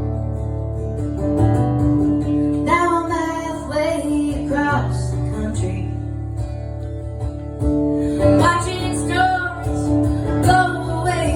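Acoustic guitar playing the opening of a country-folk song, with a woman's voice singing two phrases over it.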